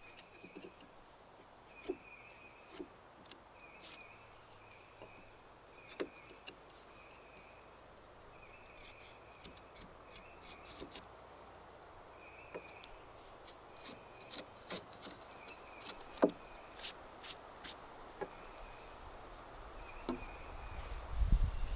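Quiet outdoor ambience: a short high chirp repeats at irregular intervals, with scattered light clicks and knocks. A low rumble begins near the end.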